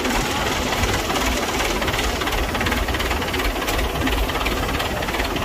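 Engine of a truck-mounted crane running steadily as the crane lifts a boat engine onto a fishing boat.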